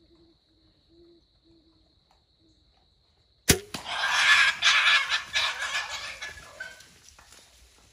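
Bow shot at a wild hog: a sharp crack about three and a half seconds in, then the hogs bolt through the brush in a loud burst of crashing and squealing that fades over about three seconds.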